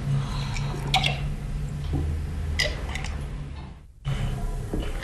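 Men drinking from glasses at a table: quiet swallowing with a couple of sharp clicks of glass, over a steady low hum. The sound drops out briefly near the end.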